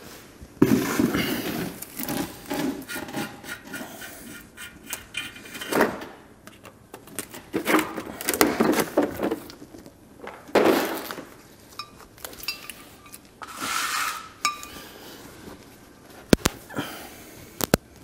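Irregular clinks, knocks and rubbing of a brake rotor and hand tools being handled: the rotor is set down on the floor and later lifted and slid onto the front wheel spindle. A single sharp click comes near the end.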